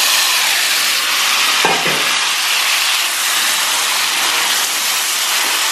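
Hot mustard-oil tempering sizzling steadily in a nonstick wok as mashed cooked vegetable is tipped in and stirred with a wooden spatula, with a short scrape about a second and a half in.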